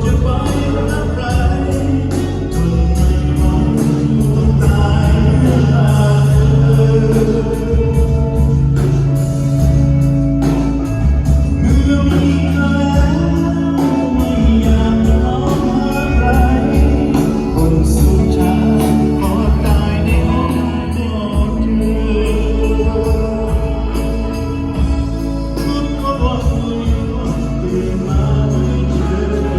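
Live band playing a song through a PA during a sound check, with a male singer over a steady drum beat and bass.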